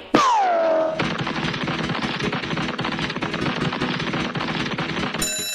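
A falling pitched tone, then about four seconds of rapid, machine-gun-like clatter, a cartoon sound effect of fast running feet. Steady ringing tones begin just before the end.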